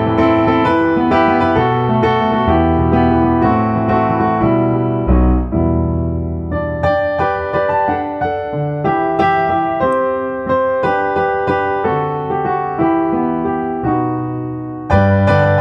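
Background piano music: a continuous run of struck notes, each fading after it is played.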